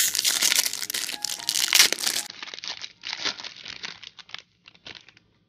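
Wrapper of a 2018 Bowman baseball card pack being torn open and crinkled by hand: a dense run of crackling that thins out to scattered crinkles after about four seconds and stops just before the end.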